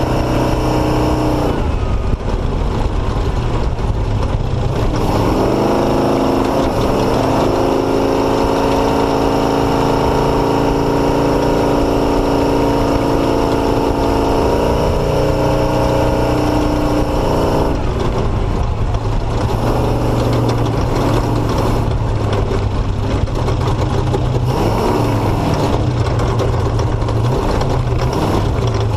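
Motorcycle engine under way. Its pitch climbs about five seconds in and holds fairly steady until about eighteen seconds, then eases off and turns uneven, over a continuous rushing noise.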